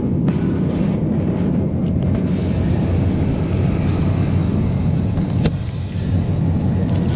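Shopping cart rolling over a store floor: a steady, loud low rumble from the wheels and rattling wire frame, carried straight into a camera riding on the cart. A single sharp click about five and a half seconds in.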